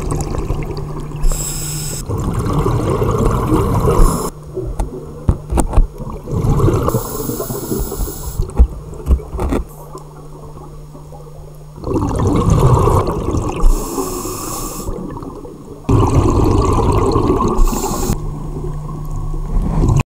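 Scuba diver breathing through a regulator: a short hissing inhale through the demand valve about every five seconds, each followed by a long gurgle of exhaled bubbles. A steady low hum runs underneath, with a few clicks.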